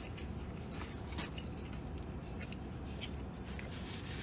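A man chewing a mouthful of a steak sub sandwich, faintly, with a few small clicks, over a steady low hum inside a vehicle's cab.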